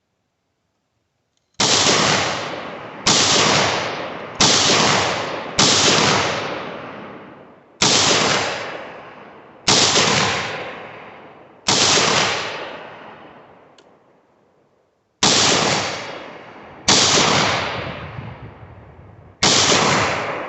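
Ten single shots from a 7.62x39 AR pistol fired one at a time at uneven intervals of one to two seconds, with a pause of about three seconds after the seventh. Each shot is a sharp crack followed by a long fading echo.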